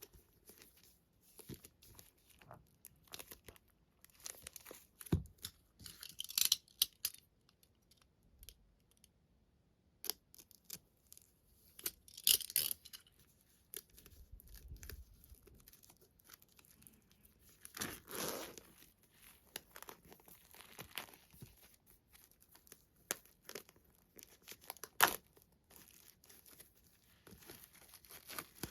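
Packaging being torn open and crinkled by hand, with irregular rustling and a few sharp knocks.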